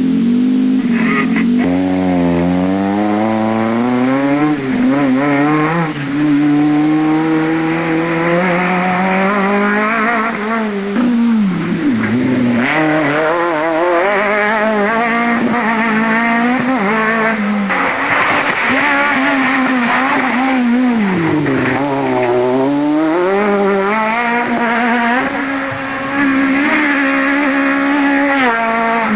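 Renault Clio Maxi Kit Car rally car's two-litre four-cylinder engine at full throttle, revving up through the gears with its pitch climbing and dropping back at each shift. Twice, about eleven and twenty-two seconds in, it falls away to low revs before climbing again.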